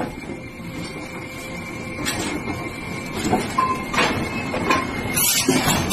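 Metal clanking and scraping as a red-hot forged steel train wheel is worked on a steel jig, over a faint steady ringing tone. Several sharp knocks come in the second half.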